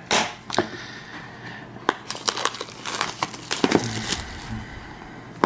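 Clear plastic wrap being peeled and torn by hand off a small cardboard product box, crinkling in a run of short crackles that are busiest through the middle.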